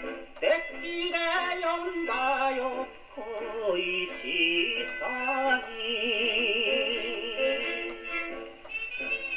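78 rpm shellac record of a 1950s Japanese popular song played acoustically on a SANKYO Goldring portable wind-up gramophone with a steel needle. It plays a melody with strong vibrato over an orchestral accompaniment.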